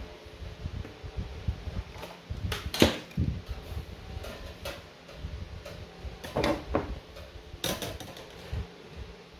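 Irregular clicks, taps and scrapes of hands working with tools and lithium-ion cells at a soldering bench, the loudest about three seconds in.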